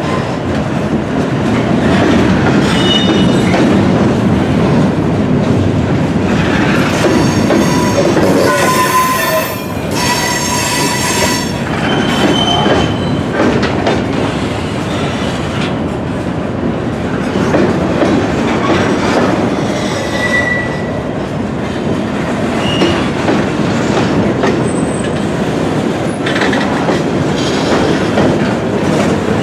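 Freight train of covered hoppers and boxcars rolling past on a curve: steady rumble and clatter of wheels and couplers, with brief shrill wheel squeals, the longest about nine to eleven seconds in.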